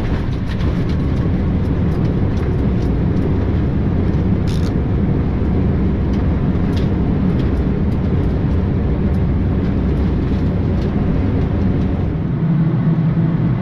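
Boeing 787-9's engines in reverse thrust during the landing rollout, a loud steady rumble heard from the flight deck. About twelve seconds in the deepest rumble falls away, leaving a steadier hum as the reversers come out.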